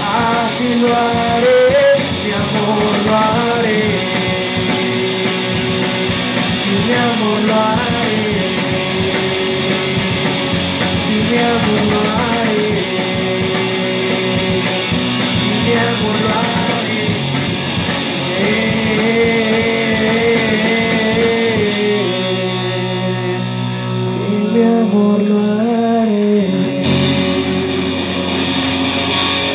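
Live rock band playing, with electric guitars, bass and drums under a winding lead melody. Near the end the cymbals stop and a held chord rings on.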